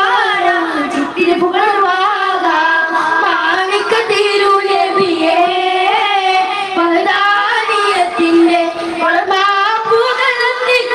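Boys singing a devotional song together in a steady group chant, with occasional strikes on daff frame drums.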